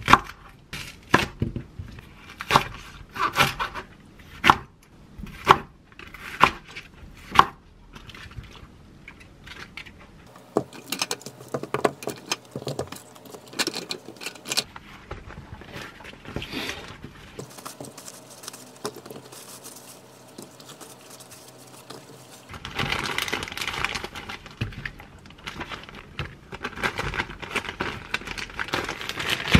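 Kitchen knife cutting through thick green onion stalks on a wooden cutting board: a run of about a dozen sharp chops in the first several seconds. Then quieter rustling as the pieces are handled on paper towel. Near the end comes the louder crinkle of a plastic zipper bag as the stalks are packed in.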